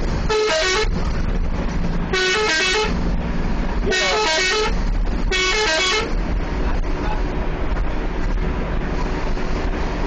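Bus 'telolet' multi-tone horn sounding four short melodic bursts of stepping notes in the first six seconds, over the steady drone of the bus engine and road noise, which carries on alone after that.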